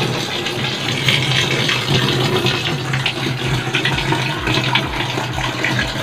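Water pouring steadily from a hose into the wash tub of a twin-tub washing machine, filling it to test whether the repaired drain seal still leaks. A steady low hum sits underneath, and low thumps come about twice a second from midway on.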